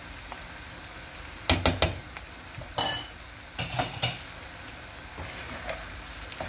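Egg and potato mixture sizzling steadily in a frying pan while a wooden spatula stirs and scrapes through it. A few sharp knocks come about a second and a half in, a brief metallic clink about three seconds in, and a few more knocks just after.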